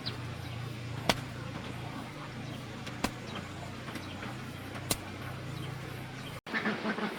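A steady low motor hum with a sharp click about every two seconds, cut off abruptly near the end.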